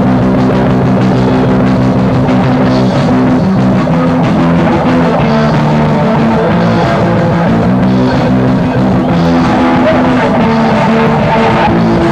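Rock band playing live: guitar, bass and drum kit in a loud instrumental passage with no singing.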